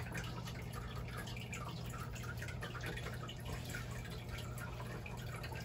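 Nile monitor gulping down a whole baby squid: small wet clicks and squelches from its jaws, coming irregularly over a steady low hum.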